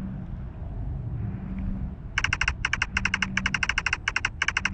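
Ghost-hunting app on a phone playing its electronic 'receiving response' sound effect: rapid beeping pulses in short runs, about eight a second, starting about two seconds in. Under it runs a low, steady hum.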